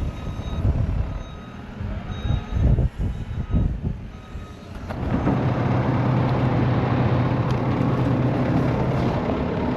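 Heavy diesel farm machinery working in snow. It rumbles unevenly at first, then about five seconds in a diesel engine close by comes in loud and runs steadily.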